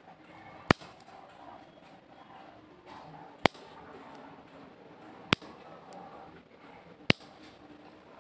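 Scissor-style pet nail clippers snipping a long-haired cat's claws: four sharp clicks, each a single cut through a claw, spaced about two to three seconds apart.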